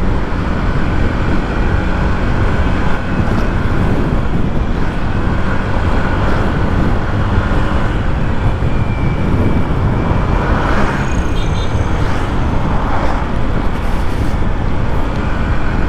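Riding noise picked up by a bike-mounted action camera: steady heavy wind rumble on the microphone over a motor scooter's running and road traffic.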